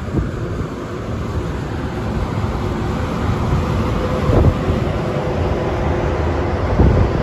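Wind buffeting the microphone on a ship's open deck at sea, a steady rushing rumble that builds slightly, with heavier gusts about four and a half seconds in and near the end. A faint steady hum sits underneath from about three seconds in.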